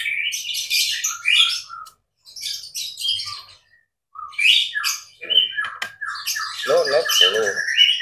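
White-rumped shama (murai batu) singing loudly in rapid bursts of high chirps and trills, breaking off briefly about two and four seconds in before going on again.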